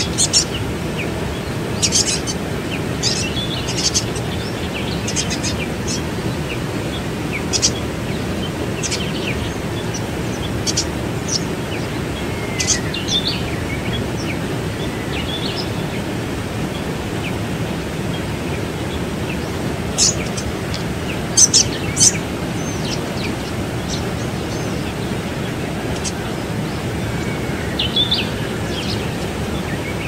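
Steady rush of a waterfall pouring into its pool, with scattered short, high bird chirps, several in quick succession about two-thirds of the way in.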